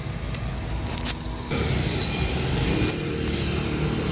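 A motor vehicle engine running close by, a steady low rumble that grows louder about a second and a half in.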